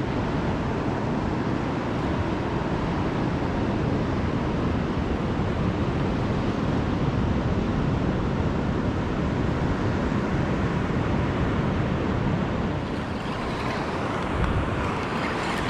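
Steady rushing noise of wind buffeting the microphone, with surf washing on the shore.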